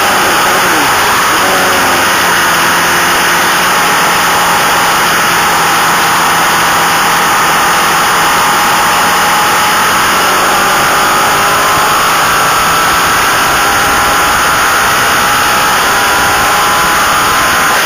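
Onboard sound of a racing motorcycle at speed: loud, steady wind rush over the microphone, with the engine note rising and falling beneath it.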